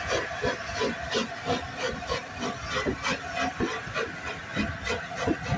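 LNER A4 Pacific steam locomotive 'Sir Nigel Gresley' pulling a train away at low speed. Its three-cylinder exhaust chuffs in an even beat of about four a second over a steady steamy hiss, with the coaches' wheels rolling past on the rails.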